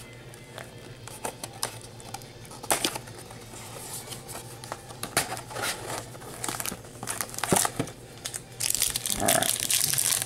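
Foil Yu-Gi-Oh booster pack wrappers and the cardboard display box rustling and crinkling as packs are handled. Scattered crinkles and taps run through it, thickening into a dense crinkle near the end as a pack is pulled out of the box.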